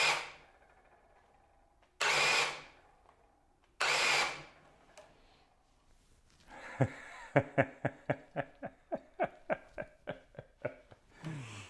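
Ryobi cordless brushless hammer drill struggling under load with the trigger held down: the motor spins up in three short spurts that each cut out, then jerks in quick pulses about four a second. The drill is stalling and cutting out, unable to turn the bit.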